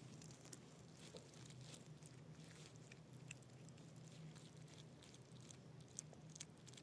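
Near silence: a faint steady low hum with scattered faint ticks and crackles.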